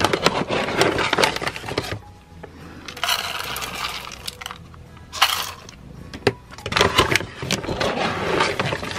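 Dry cat kibble poured into stainless steel food bowls, clattering as a rapid run of small ticks in several bursts.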